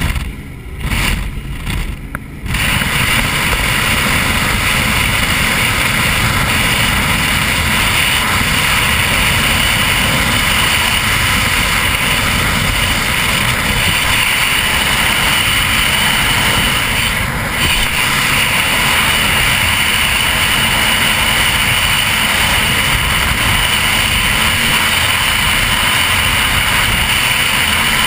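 High-performance powerboat running at speed through choppy water: a steady, loud rush of engine noise mixed with wind over the deck-mounted microphone. For the first couple of seconds the sound drops and breaks up before the steady rush takes over.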